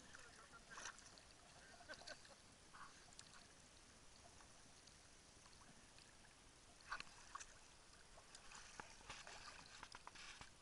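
Near silence: faint splashes and lapping of small sea waves at the water's surface, a few brief crackles scattered through it.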